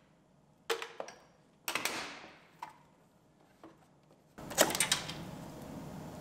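Sharp plastic clicks and snaps, about half a dozen spaced irregularly with a quick cluster near the end, as a 2009 Ford Focus headlight assembly is worked out of its mounts by hand. The snaps are its brittle, aged plastic mounting tabs breaking.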